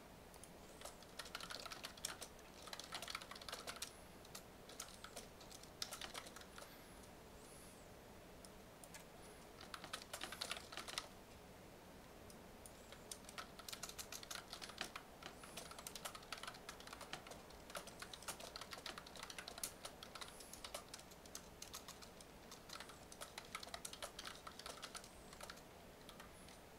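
Faint typing on a computer keyboard, keystrokes coming in quick runs broken by short pauses, with the longest stretch of typing in the second half.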